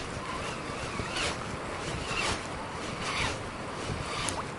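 Spinning reel being cranked to retrieve a lure, a rasping swish repeating about once a second, over a steady rush of wind and river water.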